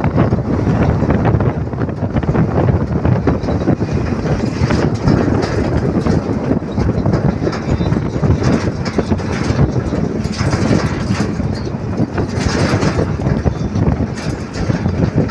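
Tata twelve-wheel truck driving at highway speed, heard from the cab: a continuous loud rumble of engine and road noise with a constant rattle running through it.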